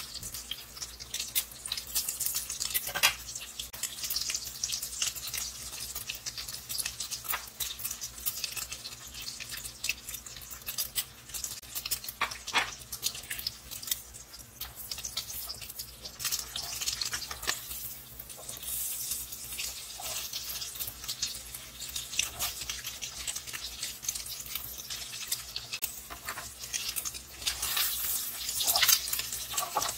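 Egg foo young omelettes frying in hot oil in a wok, a steady sizzle and crackle of spattering oil. A plastic spatula scrapes and taps against the pan now and then.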